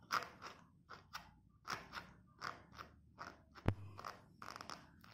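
A baby mouthing and sucking on its own fist, making a quick, irregular run of faint, short wet mouth sounds, with one sharper click about three and a half seconds in.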